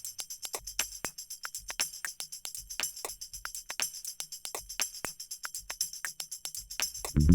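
Background music reduced to a quick, steady tambourine-like jingle rhythm, with the full band coming back in at the very end.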